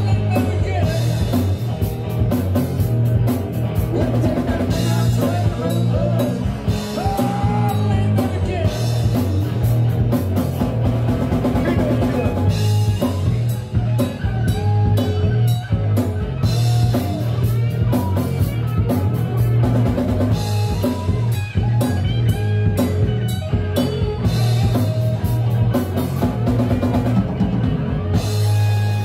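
Live rock band playing an instrumental stretch: a steady drum-kit beat with bass and electric guitar, and a lead melody line bending up and down over them.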